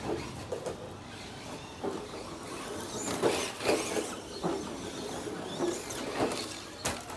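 Two Tamiya RC cars, a Brat and a Lunchbox, driving on bare dirt some way off: the whir of their stock brushed electric motors and gears, with tyres scrabbling on the dirt. A few short sharp scuffs come about three to four and a half seconds in and again near the end.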